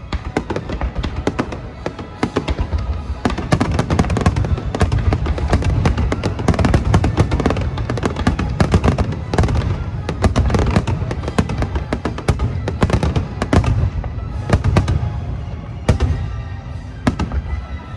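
A dense barrage of aerial firework shells bursting, many bangs and crackles overlapping in quick succession, busiest through the middle and thinning a little near the end, with show music playing underneath.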